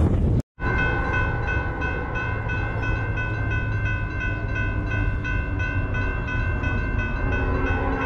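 Railroad grade-crossing warning bell ringing, a rapid even ding about three times a second over a low rumble, after a short dropout about half a second in. Near the end a lower steady tone joins in.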